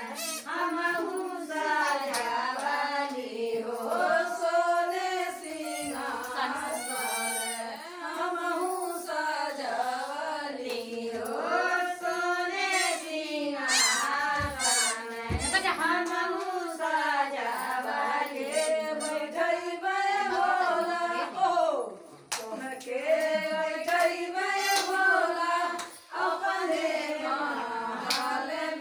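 A group of women singing a devotional folk song to Bholenath (Shiva) together, one long continuous melody, with a few hand claps.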